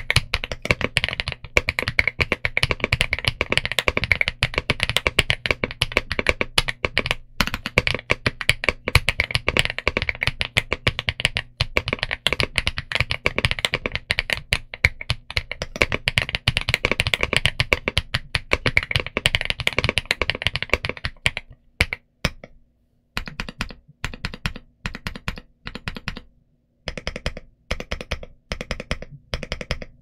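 Fast, continuous typing on a Geekzb Story65 R3 mechanical keyboard with Zuoce Litchi Milk switches and GJ Jockey double-shot PBT keycaps. About two thirds of the way through, the steady typing gives way to short groups of key presses with brief silent pauses between them.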